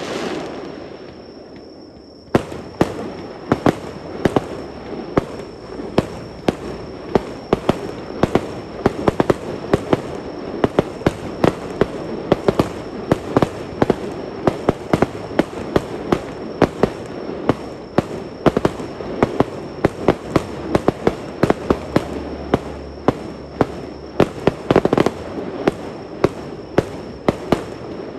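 Fireworks display: an unbroken barrage of sharp bangs and crackles, several a second. In the first two seconds an echo fades before the barrage cuts back in abruptly.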